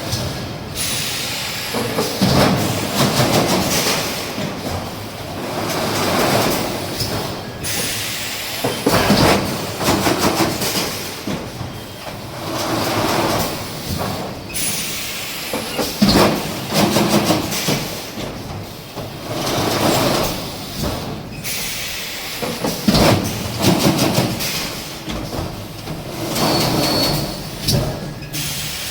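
EPS 3D steel wire mesh panel production machinery running, with repeated metallic clattering and knocking strokes, one every second or two.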